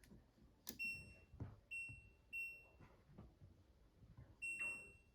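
LG DLE3400W electric dryer's control panel beeping as its settings are changed back: four short, high electronic beeps, each with a light click of the control just before it.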